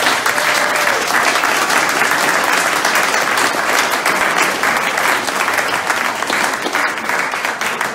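Audience applauding: many people clapping together in a dense, steady stream, easing off slightly near the end.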